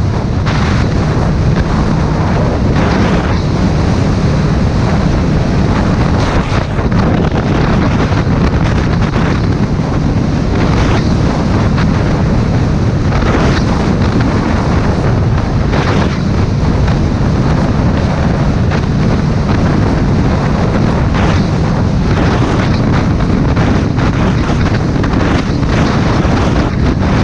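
Loud, steady wind noise rushing and buffeting over the microphone of a moving ride, with a low hum of the vehicle underneath.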